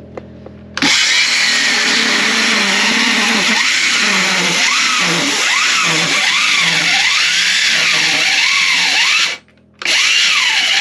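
DeWalt cordless circular saw cutting through a painted timber, its motor pitch repeatedly sagging and recovering as the blade bogs down in the cut: the saw is short of power even on a fresh battery. It starts about a second in, stops briefly near the end and starts again.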